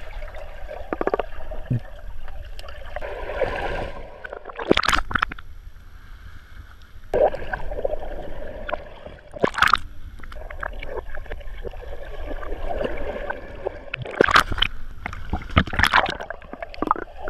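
Swimming-pool water heard from underwater: a muffled gurgling and bubbling, broken by about four loud splashing rushes of bubbles as swimmers plunge and flip down through the water.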